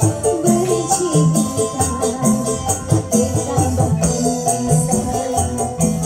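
Dangdut koplo music with a steady beat, bass and jingling percussion, played loudly through DAT DT-860VT MAX2 speaker cabinets driven at high power.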